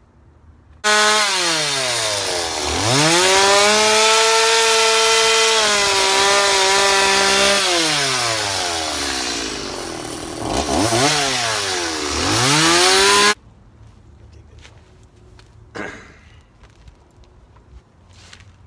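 Chainsaw engine at high revs cutting into a wood log, its pitch sagging deeply several times under load and then picking back up; the owner says the saw keeps bogging out on him and needs a tune-up. It starts and cuts off abruptly, leaving only faint handling noises.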